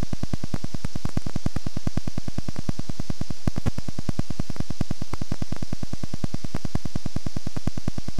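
VHS tape playback noise during a signal dropout: a steady hiss with an even, rapid pulsing buzz about eight times a second.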